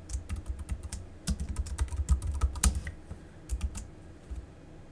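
Typing on a computer keyboard: a quick run of key clicks that thins out after about three seconds.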